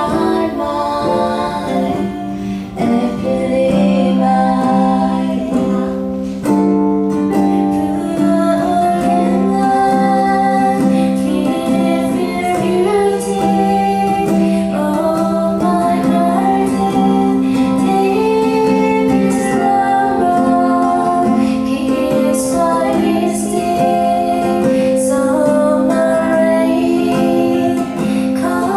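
Music: a woman singing a melody over plucked-string accompaniment, with steady held low notes underneath.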